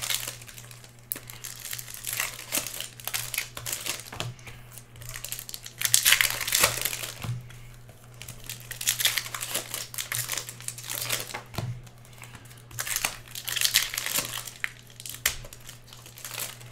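Foil trading-card packs being crinkled and torn open by hand, in several loud crackling spells, with cards handled in between. A steady low hum runs underneath.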